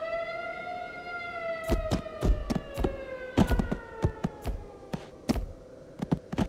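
Cartoon sound effects: a long whistle, rising slightly and then slowly falling in pitch, over which a quick, irregular run of thuds begins about two seconds in as creatures land on the sand.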